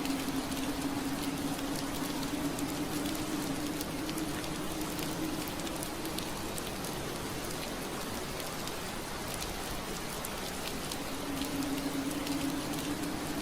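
Steady rain pattering on window glass, an even hiss with scattered drop ticks. A low steady hum underneath fades out about a third of the way in and comes back near the end.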